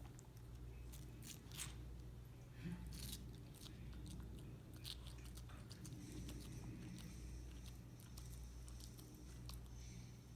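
Pomeranian chewing and biting into watermelon: irregular small crunchy bites and mouth clicks, over a steady low hum.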